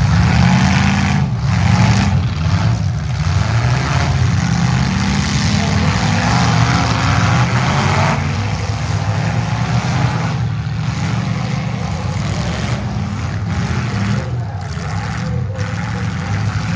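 Engines of several compact demolition derby cars running and revving together, loud and continuous, their pitch rising and falling.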